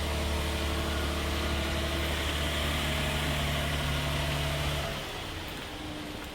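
A vehicle engine idling with a steady low hum that drops away about five seconds in.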